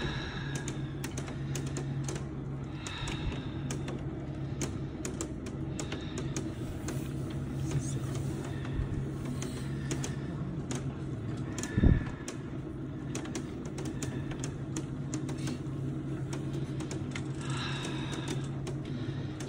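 The volcano tour's open cable lift moving along the shaft: its motor or winch hums steadily under fast, irregular clicking and rattling. One heavy knock comes about twelve seconds in.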